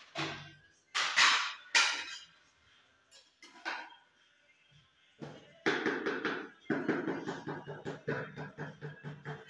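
Steel hand trowel working cement mortar and tile on a concrete stair tread as tiles are laid. There are two sharp scrapes near the start, then a quick run of taps and scrapes, about three to four a second, over the last few seconds.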